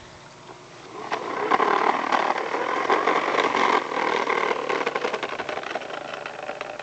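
Child's push lawnmower rattling and clattering as it is pushed along, starting about a second in, loudest in the middle and easing off toward the end.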